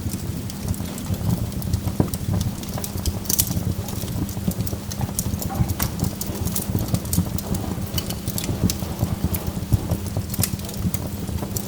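Burning logs crackling: irregular sharp pops and snaps, several a second, over a steady low rumble.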